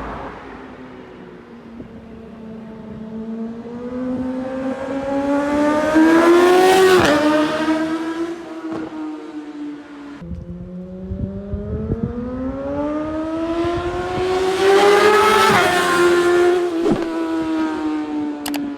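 Yamaha R6 inline-four sportbike with an Akrapovic Racing Line exhaust passing by twice: the engine note rises and swells as it approaches, then drops sharply as it goes past, about seven seconds in and again at about fifteen seconds.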